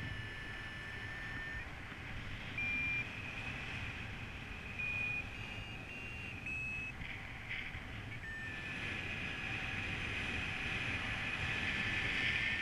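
Paragliding variometer sounding under steady airflow noise. There is a long, slightly falling low tone at the start and again from about eight seconds in, which marks sinking air. Between them come short beeps about three to seven seconds in, each a little higher than the last, which mark lift.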